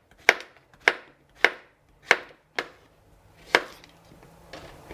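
Kitchen knife chopping summer squash: six sharp chops about half a second apart, stopping about three and a half seconds in.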